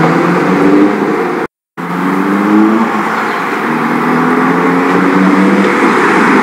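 Car engine accelerating, its pitch rising in several sweeps over a steady hum, with a brief cut to silence about a second and a half in.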